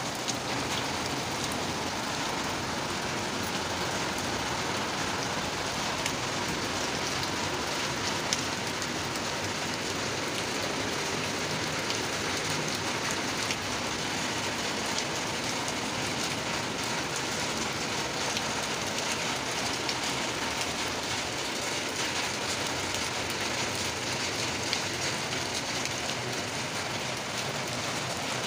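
Steady rain falling on a terrace and its potted plants: an even hiss of rain with a few sharper drop ticks here and there.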